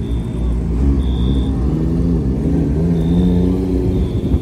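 Low engine rumble of modified cars pulling slowly out of a lot one after another, a Nissan GT-R and then a Nissan Stagea wagon, the engine note rising and falling with light throttle. A faint high-pitched tone comes and goes several times above it.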